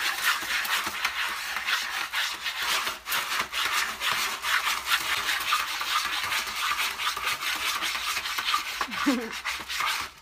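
A cat digging in pellet cat litter in a plastic litter tray: a run of quick, rapid scratching and raking strokes as the paws rake the pellets and scrape the tray bottom.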